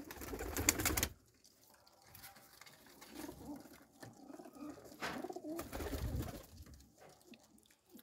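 Domestic teddy pigeons cooing softly in a loft. A loud rustle of movement comes in the first second, and another about five seconds in.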